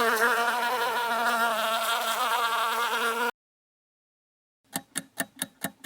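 A bee buzzing with a wavering pitch for about three seconds, then stopping. After a short pause, a quick run of evenly spaced ticks, about six a second.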